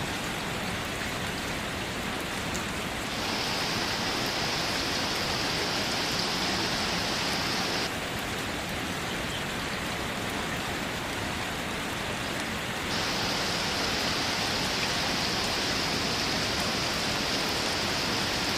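Steady rain falling, an even hiss that gets a little louder and brighter from about 3 to 8 seconds in and again from about 13 seconds on.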